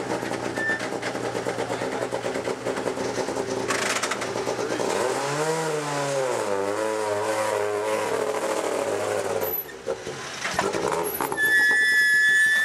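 Peugeot 207 S2000 rally car's naturally aspirated four-cylinder engine running as the car creeps along, its pitch rising and falling with the throttle. Near the end a steady high tone comes in and is the loudest sound.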